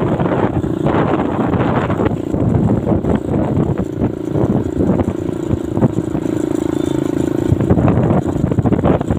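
Motorcycle engine running at a steady pitch while riding.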